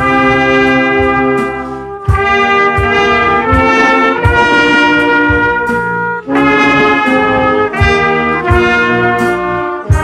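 Trumpet played close to the microphone, a melody of loud held notes that change pitch every half second to a second. Short low thumps fall roughly once a second beneath it.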